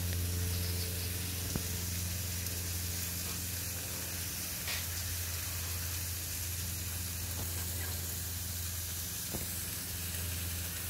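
Meat sizzling on a hot barbecue, a steady frying hiss with a few faint ticks, over a steady low hum.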